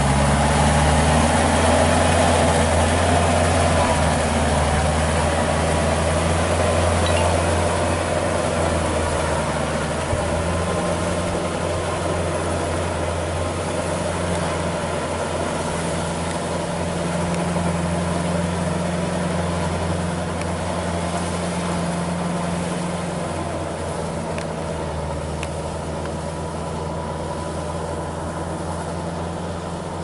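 Kubota L4508 tractor's four-cylinder diesel engine running steadily under load as it tills a flooded rice paddy on cage wheels, slowly getting fainter.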